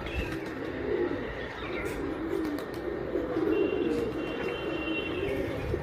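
Domestic pigeons cooing, low rolling calls repeating over one another.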